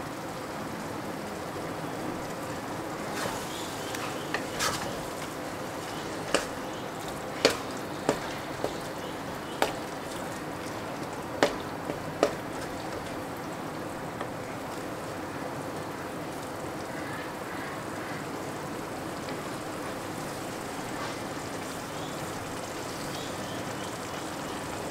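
Chicken keema frying in oil and tomato masala in a kadai, a steady sizzle while it is stirred, with a spatula knocking sharply against the pan about seven times in the first half. The mince is being fried until it turns from pink to white.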